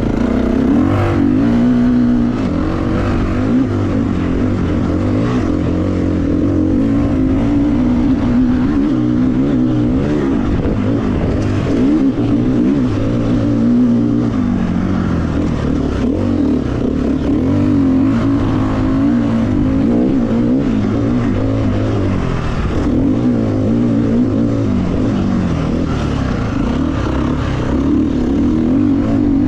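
Motocross bike engine revving hard under load, its pitch climbing and dropping over and over with throttle and gear changes.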